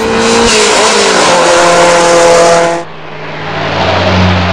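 Race-car sound effect: tyres screeching loudly for nearly three seconds and stopping abruptly, then an engine running and growing louder.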